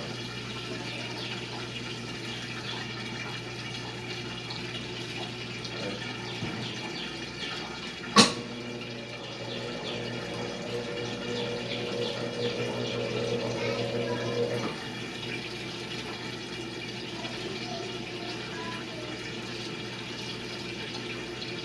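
Washing machine running with water rushing through it over a steady low hum. One sharp click comes about eight seconds in, and a steady droning tone from about nine seconds cuts off near fifteen seconds.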